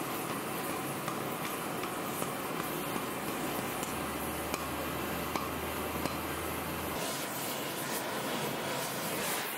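Steady hissing roar of an oxy-acetylene torch heating a Damascus steel sword guard. Several light hammer taps on the hot steel over the anvil horn fall in the first two thirds.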